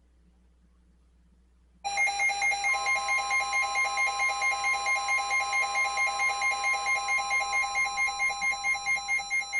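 A weather alert radio's electronic alarm starts about two seconds in and beeps rapidly, about four pulses a second. Under a second later a steady high tone joins it: the NOAA Weather Radio 1050 Hz warning alarm tone, which announces a new warning broadcast.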